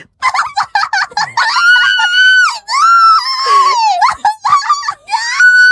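A very high-pitched female voice squealing in long drawn-out cries, broken by short yelps in between.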